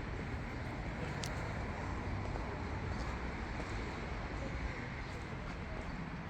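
Town street ambience: a steady low rumble and hiss, with one sharp click about a second in.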